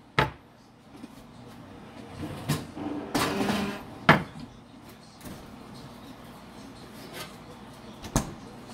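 A plastic syrup bottle and a tall drinking glass set down on a wooden cutting board: sharp knocks just after the start, about four seconds in, and near the end, with a rustle of handling just before the second knock.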